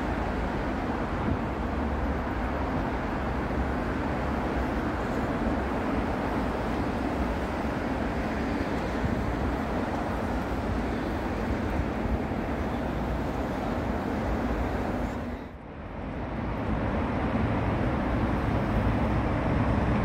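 Steady road traffic noise: cars passing on a city road, a continuous rush of engines and tyres. About fifteen seconds in it dips briefly, then carries on slightly louder.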